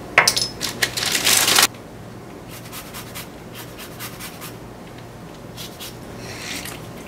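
Kitchen handling noises: a few sharp clicks, then a scraping rustle for about a second and a half that cuts off suddenly, followed by faint scattered taps.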